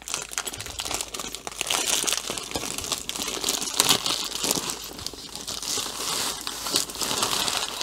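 Clear plastic bag crinkling and crackling steadily as it is opened and pulled off a rolled canvas.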